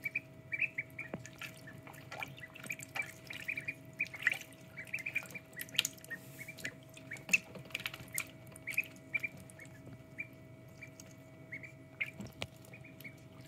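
Ducklings peeping over and over in short high chirps while paddling in a shallow tray of water, with small splashes and drips.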